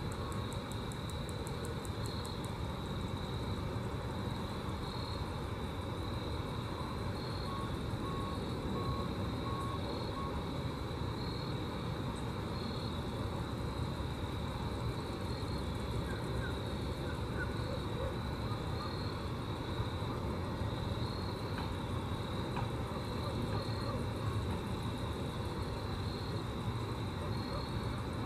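Grasshoppers stridulating: a steady, rhythmic high chirping that repeats evenly, over a constant low rumble.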